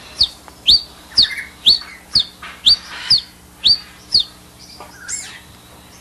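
A man whistling a run of about nine short, sharp rising notes, roughly two a second, imitating a Brazilian tanager (sangue-de-boi) to draw the bird's attention; the notes stop a little after four seconds.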